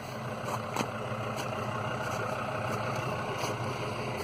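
Engines of two off-road vehicles, one petrol and one diesel, idling steadily.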